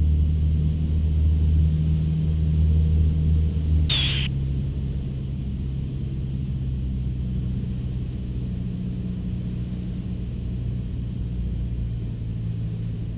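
Cessna 152's four-cylinder Lycoming engine and propeller droning steadily inside the cockpit on final approach. About four seconds in, the engine note drops and gets a little quieter as power comes back toward idle for the landing, and a brief high chirp sounds at the same moment.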